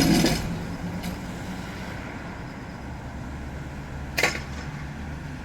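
Tram and street vehicle noise: a steady low rumble, a loud rush that fades in the first half second, and one short sharp hiss about four seconds in.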